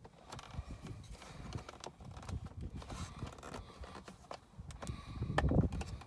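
Plastic console bottom plate being pried off with a plastic trim pry tool: irregular clicks and knocks as the retaining clips work loose, with a louder knock about five and a half seconds in.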